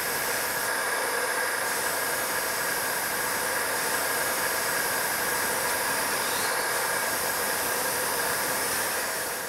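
Simple motor-driven stone-cutting saw slicing a piece of lapis lazuli for a mosaic: a steady whining hiss with several held tones, fading out near the end.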